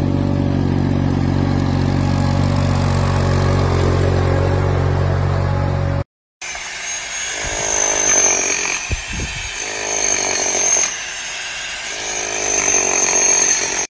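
A compact ride-on utility tractor's engine running steadily, cut off abruptly about six seconds in. Then a rotary hammer drill runs against brick with a high whine, its level rising and falling as it drills.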